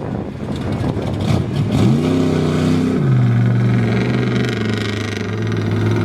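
Mud bog truck's engine, rough and noisy at first, revving up about two seconds in, holding high for a moment, then dropping to a lower steady pull.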